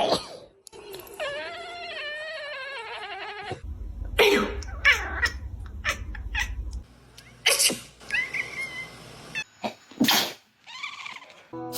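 A pet cat yowling: a long, wavering cry of a couple of seconds, then shorter falling meows, in reaction to a person sneezing. Several short, sharp human sneezes break in, one at the very start and more near the end.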